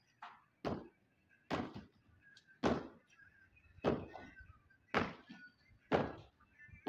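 Footsteps of a person walking over hard ground: a dull thud about once a second, seven in all.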